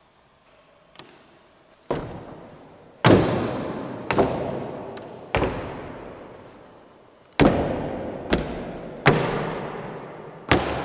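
A series of sharp bangs: a faint one about a second in, then eight loud ones at irregular gaps of about a second. Each rings out in a long echo that dies away over a couple of seconds, as in a large bare hall.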